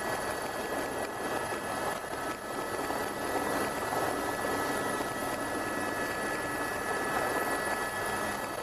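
Helicopter running steadily, heard from on board: a continuous rush of rotor and engine noise with a high, steady whine of several tones over it.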